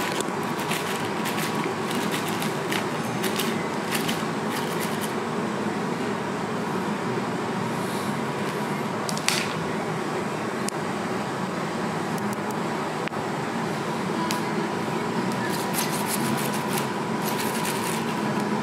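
Steady room hum, like an air conditioner or fan, with scattered light clicks and rustles: a cluster in the first few seconds, a single sharper click about nine seconds in, and another cluster near the end.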